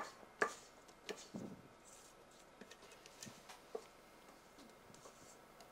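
A spatula scraping and tapping against a stainless steel mixing bowl as cream is pushed out into a glass bowl. A few short, quiet knocks: the loudest right at the start and about half a second in, then fainter ones.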